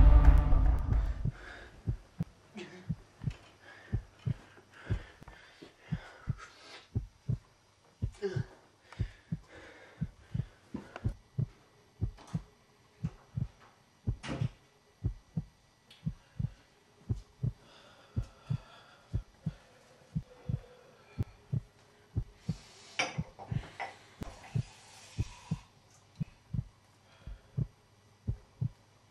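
Heartbeat sound effect: steady low thuds, about two a second, as the tail of eerie music fades out at the start.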